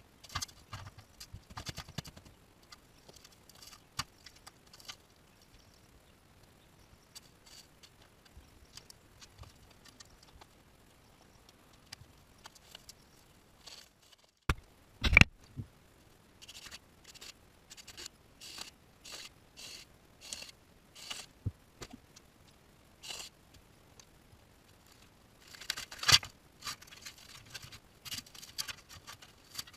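Scattered scrapes, knocks and crackles of hand work on a rotted Jeep Cherokee XJ rocker panel: a loose diamond-plate rocker cover being handled, then dried spray foam being broken and pulled out of the rocker. One sharp knock comes about halfway through, and a burst of crackling comes near the end.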